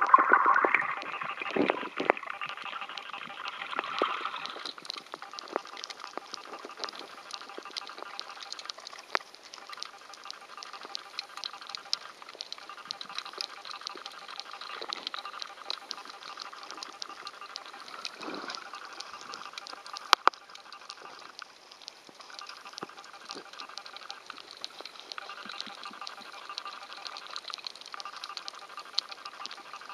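Underwater ambience picked up by a filming camera: a continual crackle of small clicks over a watery hiss, with louder water noise in the first few seconds and one sharp click about twenty seconds in. A faint hum comes and goes in stretches of a few seconds.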